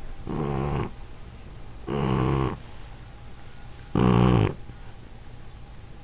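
Shar Pei dog snoring in its sleep: three loud snores, each about half a second long, coming about two seconds apart.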